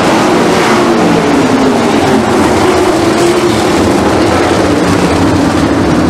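Several 410 sprint cars' methanol-burning V8 engines running hard around a dirt oval, blending into one loud, dense engine sound that sags slightly in pitch in the second half.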